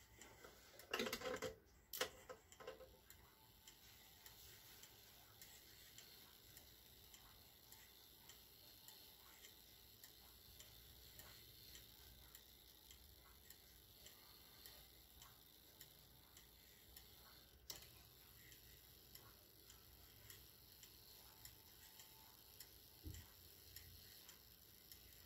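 Antique German spring-driven wall clock movement ticking steadily, its escapement giving faint, evenly spaced ticks. A couple of louder mechanical knocks come about one and two seconds in.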